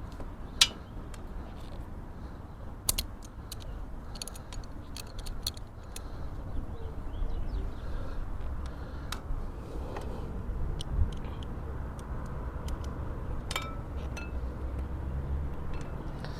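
Wrenches clinking and ticking against a brake hose fitting as it is tightened: scattered sharp metal clicks, the loudest about half a second in.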